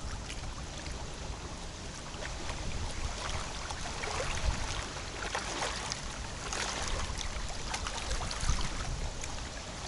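Strong wind rumbling over the microphone, with small waves lapping and splashing irregularly at the water's edge.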